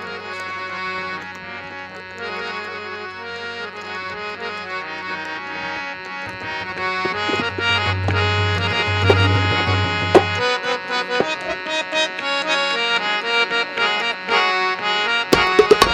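Harmonium playing an instrumental opening of held, chord-like notes, with tabla strikes coming in just before the end.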